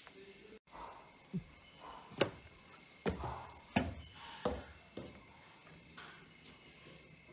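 A series of about six sharp knocks and thuds at uneven intervals, each ringing briefly.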